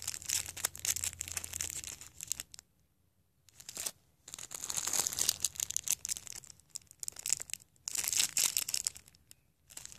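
Small clear plastic zip bags of nail glitter and rhinestones crinkling as they are handled and shuffled through, in irregular spells with a short pause about three seconds in and another near the end.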